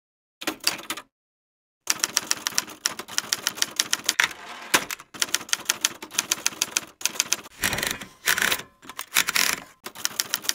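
Typewriter keys clacking in quick succession, several strokes a second, with short pauses and a few longer, noisier strokes in between. A brief burst of keystrokes comes about half a second in, then the steady typing starts about two seconds in.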